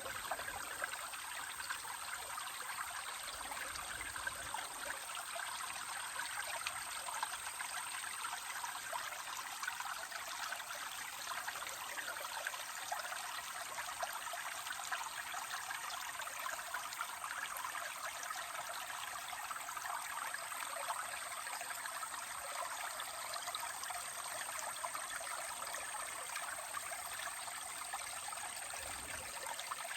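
Spring water spilling out of a rock and trickling steadily, an even, unbroken babble of running water.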